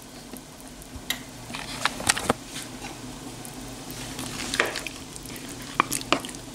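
A plastic ladle stirring chayote and chicken in a pot of boiling broth, knocking sharply against the pot a handful of times over a steady bubbling hiss.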